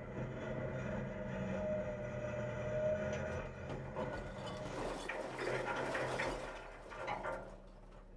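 Front-loader garbage truck (Mack LEU with a McNeilus Atlantic body) running with a steady engine and hydraulic hum as its forks lift and tip the Curotto Can. From about four and a half seconds in comes a rough, loose rush of recycling sliding and clattering out of the tipped can, which dies down near the end.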